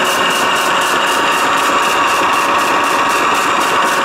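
Peg Perego Super Gaucho ride-on's electric drive motors and gearboxes running at speed, spinning the rear wheels with no load: a steady whine with a fast, even pulsing.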